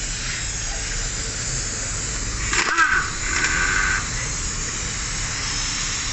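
Power ratchet whirring in two short bursts about three seconds in, spinning out the transmission oil pan bolts, with a click just before, over steady workshop noise.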